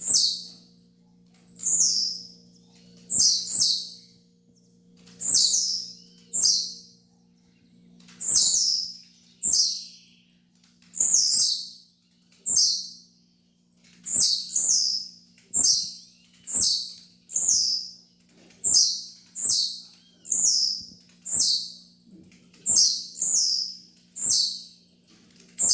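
Blue-black grassquit (tiziu) singing its short song over and over, about once a second: each is a brief, high note sweeping downward. A faint steady low hum lies underneath.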